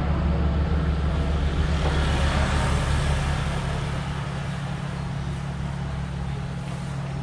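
Street traffic: a steady low engine hum, with vehicle noise that swells about two seconds in and then eases off.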